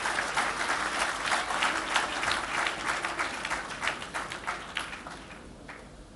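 Audience applauding: a dense patter of many hands clapping that tapers off and dies away after about five seconds.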